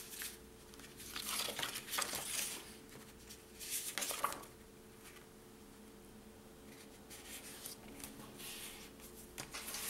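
White cardstock being slid, folded and pressed flat by hand, in a few short bursts of paper rustling and rubbing.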